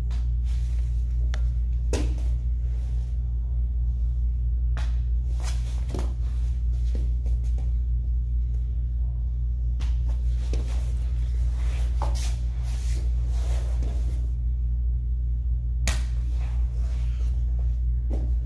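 Two grapplers shifting on foam mats: scattered soft thuds, slaps and rustles of bodies and clothing against the mat, over a steady low hum.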